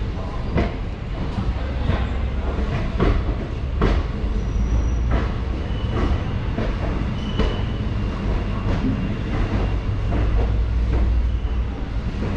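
Passenger train running slowly: a steady low rumble with irregular clicks of the wheels over the rail joints.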